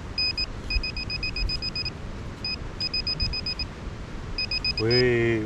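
Handheld metal-detecting pinpointer beeping fast, about ten short beeps a second in bursts with brief pauses, as its tip is worked through sand onto a buried coin. A man's voice comes in near the end.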